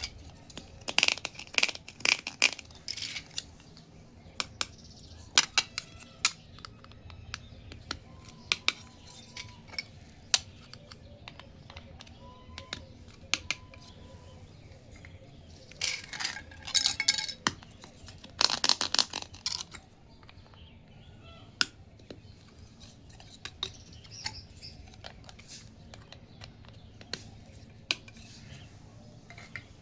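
Small plastic toy kitchen pieces handled and set down, tapping and clinking against each other, with bursts of rattling clatter near the start and again about halfway through.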